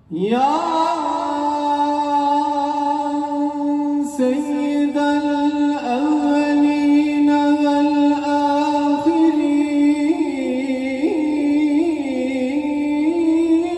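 Male voice chanting the sela over a loudspeaker system. A long held note opens with an upward glide and holds for several seconds, then breaks into wavering melismatic ornaments about ten seconds in.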